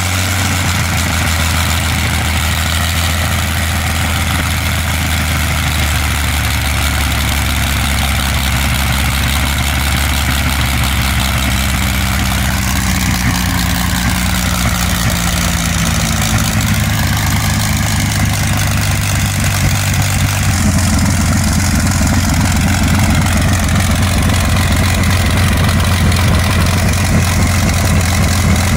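Rolls-Royce Merlin V12 aero engine running at idle on a display stand, spinning its propeller, with a steady low beat. About two-thirds of the way through it runs a little louder and fuller.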